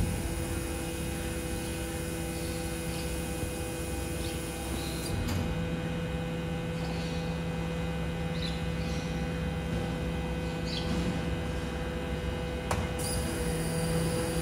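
BYD electric garbage truck standing with its electric drive and hydraulic system running: a steady electric hum made of several held tones, with no engine note.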